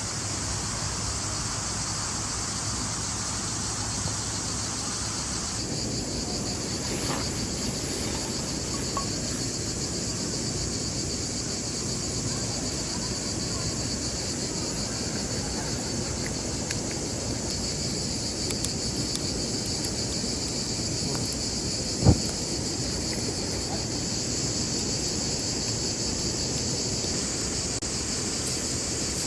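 Steady chorus of crickets or similar insects, with a low steady noise underneath and one sharp snap about 22 seconds in.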